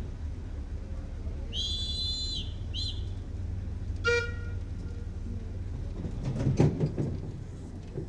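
Narrow-gauge steam locomotive whistle: a high-pitched blast of about a second, then a short second blast, followed by a brief lower toot about four seconds in. A louder rumbling burst comes near the end, over a steady low rumble.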